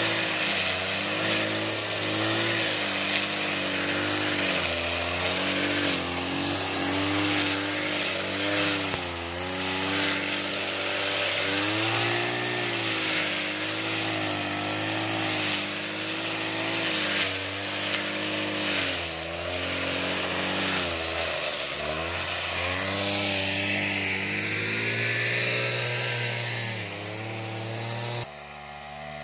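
Backpack brush cutter's small petrol engine running hard, its pitch dipping and recovering again and again as it cuts through thick, tall grass. About a second before the end the sound suddenly drops to a quieter level.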